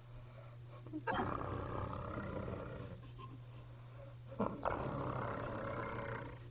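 A woman snoring in her sleep, like a cartoon character: two long snores, the first starting abruptly about a second in and the second about halfway through.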